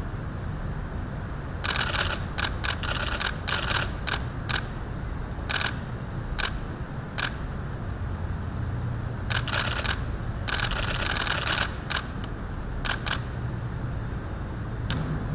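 Camera shutters clicking in rapid bursts that come and go, a dozen or so clusters of quick clicks, over a steady low hum.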